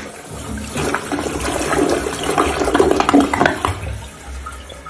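Toilet flushing: water rushing and swirling down the bowl, dying away near the end.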